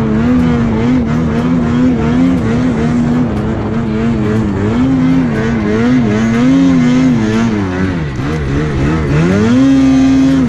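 Snowmobile engine revving up and easing off again and again as the throttle is worked through deep powder. About eight seconds in the revs sag low, then climb to a steady high rev.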